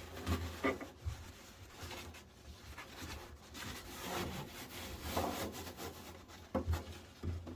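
Handling noise: irregular rubbing, scraping and light knocks, with no steady run of sound.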